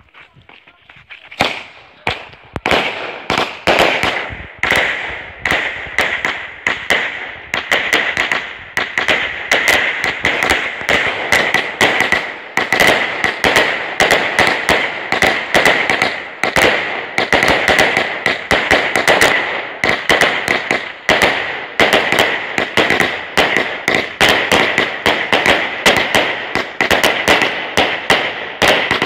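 A 100-shot fireworks cake (Category F2 battery) firing rapidly. After a brief lull about a second and a half in, its shots launch and burst in a dense, unbroken string of bangs and crackles, several a second.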